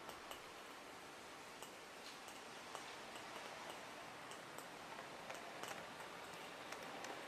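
Faint, irregular clicking of 0m-gauge model train wheels running over rail joints, over a steady low hiss.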